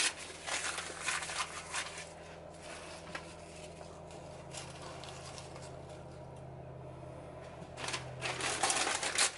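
Crumpled newspaper rustling and crinkling as it is handled and pressed into shape, in short spells during the first couple of seconds and again near the end, with a faint low hum in the quieter middle.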